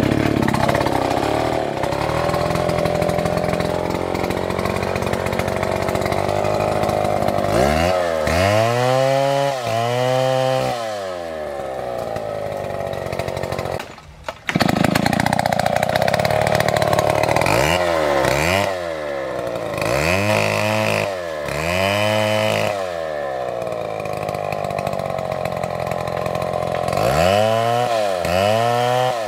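Two-stroke STIHL chainsaw running loudly, held at steady high speed in stretches and revved up and down again and again; near the end the long-bar saw is cutting into a tree trunk. The sound breaks off briefly about 14 seconds in.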